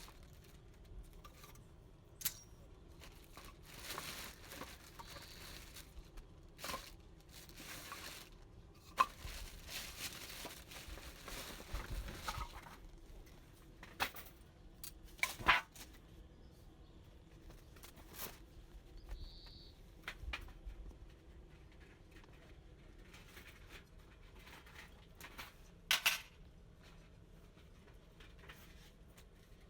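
Scattered clicks, knocks and rustles of small objects and gear being handled, with a few sharper knocks standing out.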